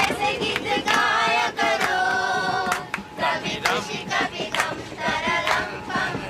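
A group of voices singing together, holding and bending notes, with sharp percussive hits about twice a second.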